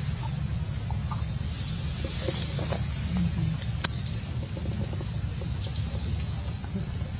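Outdoor forest ambience: a steady high-pitched insect drone over a low rumble, with two bursts of rapid high pulsing about four and six seconds in and a single sharp click just before four seconds.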